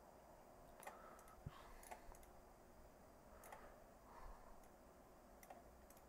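Faint, scattered computer mouse clicks over near silence, about half a dozen sharp clicks spread over the few seconds.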